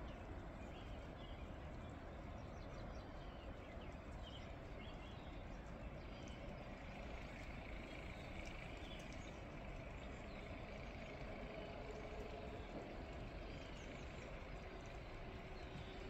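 Steady outdoor snowstorm ambience: a low, even background rumble with faint, scattered small bird chirps.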